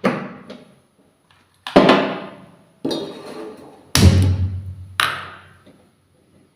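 Kitchen clatter from a pot of water and a gas stove being handled: five sharp knocks and clanks, each ringing out briefly, the fourth with a deep hum beneath it.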